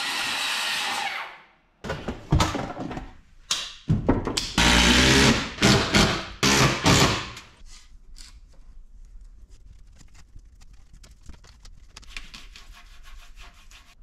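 Cordless circular saw running through plywood and spinning down about a second in. Then, over the next several seconds, a string of loud knocks and short bursts of a drill as the board is fixed to the wall.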